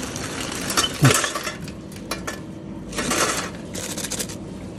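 Clinking and clattering of small hard objects being handled, a series of sharp knocks and clicks over a steady background hum.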